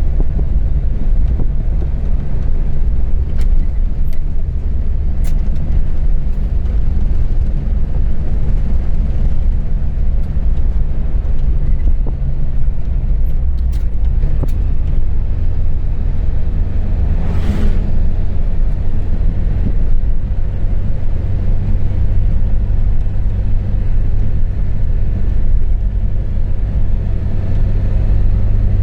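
Motor vehicle running steadily: a loud, even low engine and road rumble, with a brief rushing sound about two-thirds of the way through.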